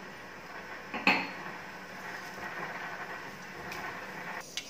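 Mustard seeds and urad dal sizzling faintly in a little hot oil in an aluminium kadai, the tempering stage before the mustard splutters. There is one sharp metallic tick about a second in and a few fainter ticks near the end.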